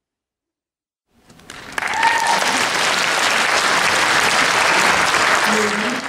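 Audience applauding: the clapping starts about a second in, swells quickly, and then holds steady.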